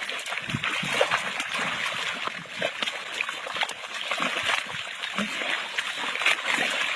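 Water splashing and sloshing in quick, irregular splashes.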